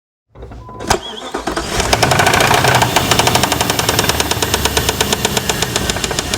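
A 1999 Jeep's 4.7-litre V8 starting, with a sharp click about a second in, then running with a rapid, regular knock, the engine knock under investigation.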